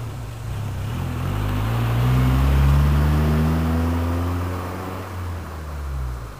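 Honda Fit GD3's four-cylinder engine through a Mugen dual-silencer exhaust, accelerating with the exhaust note climbing steadily in pitch and loudness, then dropping away about five seconds in as the throttle comes off.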